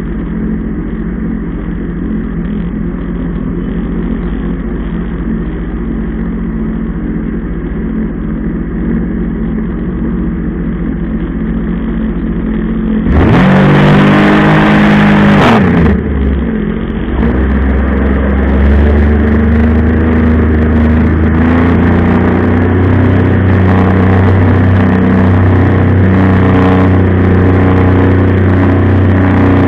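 Jet ski engine running steadily, then about halfway a brief loud surge with a sweeping pitch, after which it runs louder and deeper at a steady higher speed with more hiss on top.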